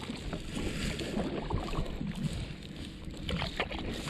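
Kayak paddle strokes dipping and splashing in the water, a few sharper splashes about three and a half seconds in, over a low rumble of wind on the microphone.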